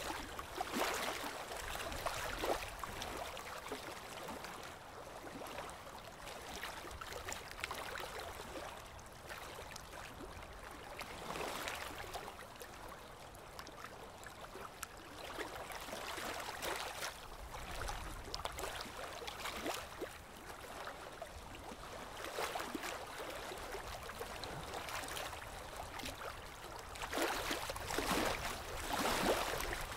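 Small waves lapping and splashing against shoreline rocks, coming in surges every few seconds, the loudest near the end.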